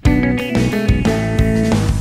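Instrumental background music with guitar, a new phrase starting right at the beginning.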